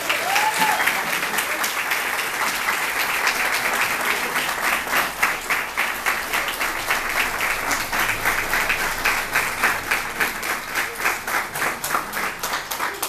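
Crowd applauding, with a brief shout from one voice about half a second in. The clapping becomes a more even, rhythmic beat in the second half.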